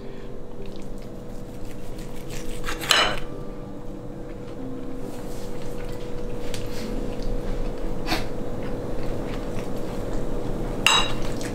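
Steel knives and forks scraping and clinking on ceramic plates as steak is cut, with a few sharper clinks about three seconds in, around eight seconds and near the end.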